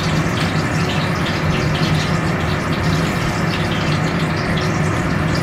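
A steady rushing noise with a low hum, unchanging in level.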